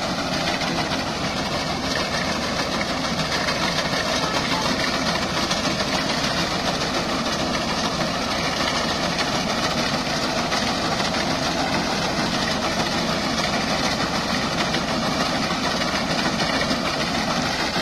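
Tractor engine running steadily as it drives a front-mounted reaper through standing wheat, with the steady rattle of the cutting mechanism mixed in.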